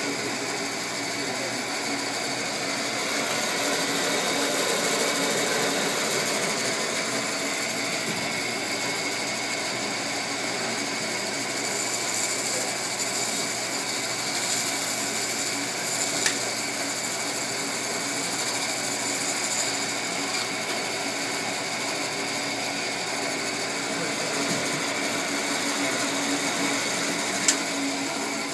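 Band saw running steadily as a doughnut is sliced on it, with two brief sharp ticks, one about halfway through and one near the end.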